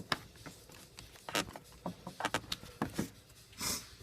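Irregular clicks and light knocks of parts and connectors being handled in an engine bay during reassembly, with a short rustling burst about three and a half seconds in.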